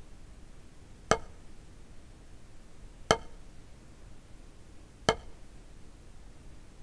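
Wooden drumstick striking a practice pad in slow single full strokes: three sharp taps about two seconds apart, each with a brief ringing tone. Each time the stick is dropped from fully raised and left to rebound freely off the pad.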